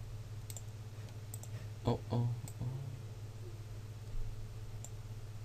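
A few scattered computer mouse clicks over a steady low microphone hum, with a short murmur of voice about two seconds in.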